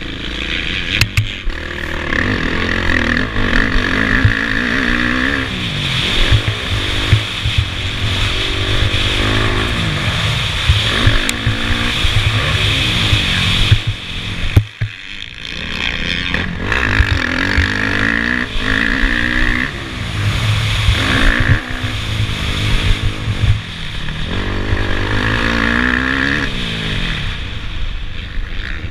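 Motocross bike engine at racing throttle, heard from a helmet-mounted camera. The engine revs up and falls back every second or two as the rider works the throttle and gears, with a short throttle-off about halfway through and a few sharp knocks over the rough track. Wind rush runs underneath.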